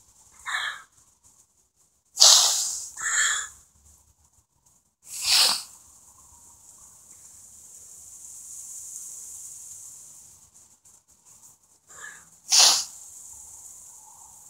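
A person sniffling and taking short, sharp breaths through the nose, the sounds of someone crying: about six uneven sniffs, two close together a couple of seconds in and two more near the end, with a faint hiss between.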